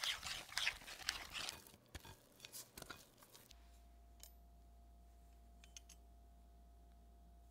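Dough whisk stirring sticky bread dough in a wooden bowl: quick repeated wet scraping strokes that thin out after about two seconds and stop near the middle. A faint steady hum with a few small clicks follows.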